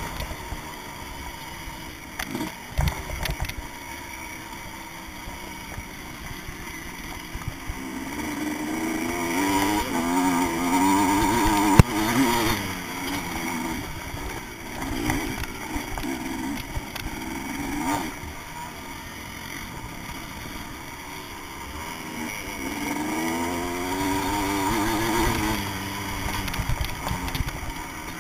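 Vintage motocross bike's engine heard from the bike-mounted camera, revving up and down as the rider accelerates and backs off around the dirt track, loudest in two stretches near the middle and towards the end. A sharp knock about twelve seconds in.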